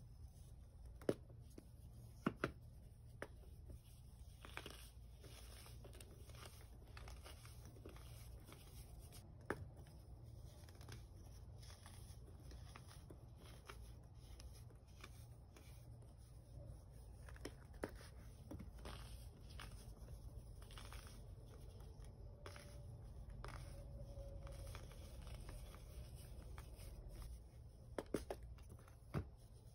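Pressed baking soda pucks being broken and crumbled by hand over a tub of loose baking soda powder: soft crumbling and crunching, with a few sharp cracks as chunks snap, two of them close together near the end.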